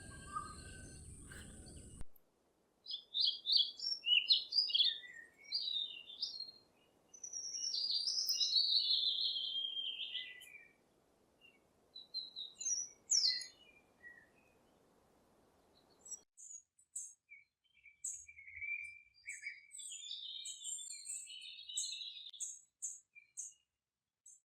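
Small birds chirping and calling in quick runs of short, high notes, with a lull in the middle.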